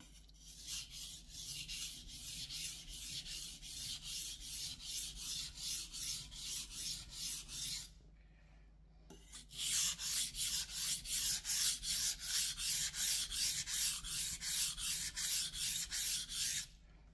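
A Ryuko santoku's blade is stroked back and forth on a wet 1000 grit Morihei whetstone, making rhythmic hissing scrapes at about two to three strokes a second. There are two runs with a short pause about eight seconds in while the knife is turned over, and the second run is louder.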